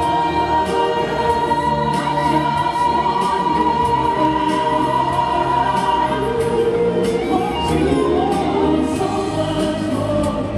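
A gospel choir singing with instrumental accompaniment, one long high note held through the first half.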